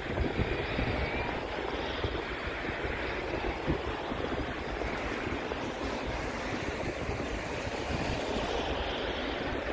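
Wind buffeting the microphone: a steady rushing noise with uneven gusty swells at the bottom.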